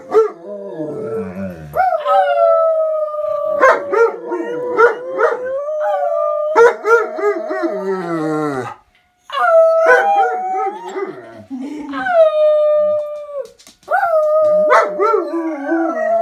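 A German shepherd and a husky howling together: long held howls, often overlapping, broken by short pauses and a few sharp yips, with a brief silence just before halfway.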